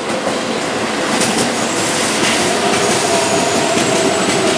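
Keihan 9000-series electric train passing close on a curve: a steady running rumble with a thin, high wheel squeal and light clicks of wheels over rail joints, growing slightly louder.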